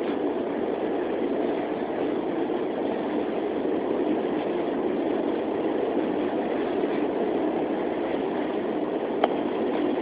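Inside a New York City subway car running on an elevated line: a steady rumble of the wheels on the rails. There is one sharp click near the end.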